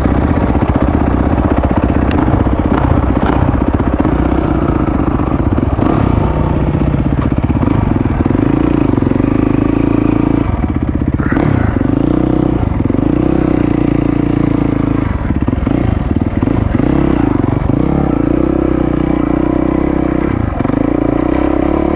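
450cc four-stroke single-cylinder dirt bike engine running under way, its note rising and falling with the throttle, with a few brief drops as the throttle closes.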